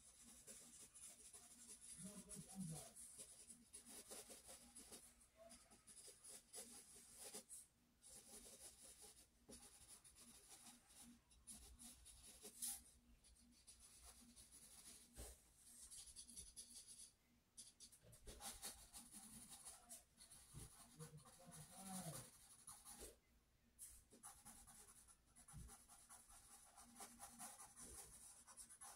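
Faint pencil scratching on sketchbook paper: many quick, short shading strokes.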